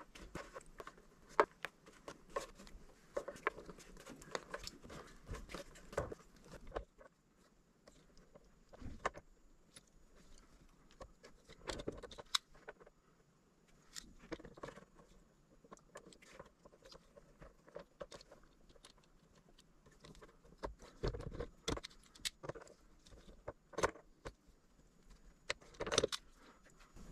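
Scattered small metallic clicks, taps and rattles of hands fitting a brass PEX tee and crimp rings onto red PEX tubing and working a hand PEX crimping tool, coming in short bursts with brief quiet gaps.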